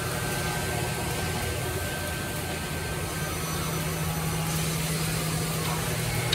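Woodmaster WM-1500-3CNC three-head CNC mortising machine running steadily, with a continuous motor hum as its three spindles cut mortises into pine workpieces.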